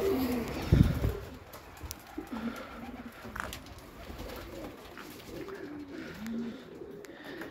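Domestic pigeons cooing, a run of short low calls one after another. A dull thump comes about a second in.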